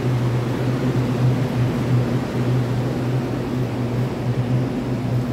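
Steady low mechanical hum of an underground railway platform: one deep, even drone with a fainter hiss above it.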